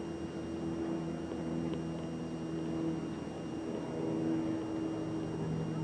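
Steady low hum and hiss of an old television soundtrack, its low tones shifting slightly in pitch now and then, with a couple of faint ticks.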